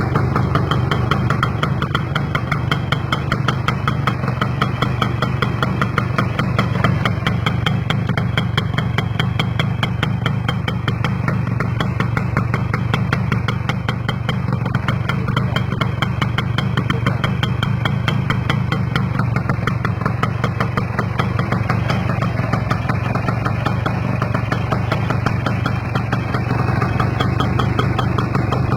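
Kawasaki GTO motorcycle's single-cylinder two-stroke engine idling steadily.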